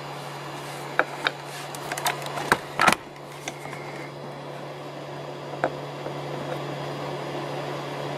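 Small 3D-printed plastic cube clicking and tapping as it is handled and set down on the printer bed: a run of sharp taps in the first three and a half seconds, the loudest near the end of that run, and one more later. A cooling fan hums steadily underneath.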